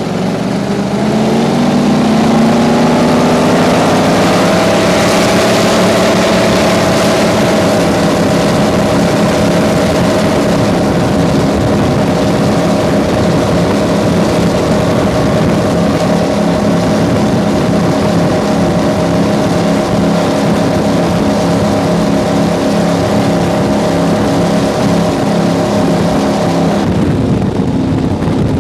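Wellcraft Scarab 38KV speedboat's engines accelerating, the pitch climbing for about five seconds, then running steadily at speed with wind and water rushing. Near the end the engine note changes and the rushing noise drops.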